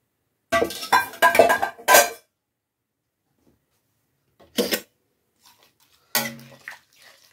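A metal utensil clattering and knocking against a cooking pot while potatoes and prawns are stirred into the masala. There is a quick run of clatters in the first two seconds, then a single knock and, near the end, one more clank that rings briefly.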